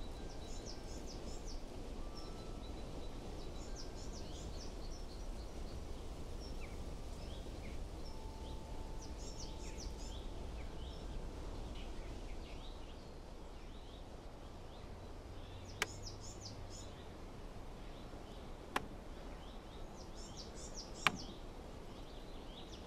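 Quiet outdoor background with small birds chirping in short, repeated high trills every few seconds. Three sharp single clicks fall in the last third.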